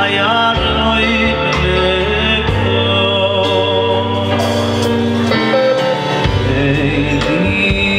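A male vocalist sings into a microphone over a live band playing electric guitar, keyboard and drums, with a steady bass line underneath.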